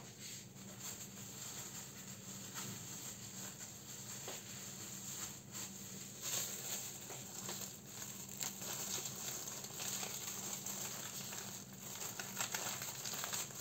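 Soft rustling and crinkling with scattered light taps, as of food and plastic being handled at a kitchen counter.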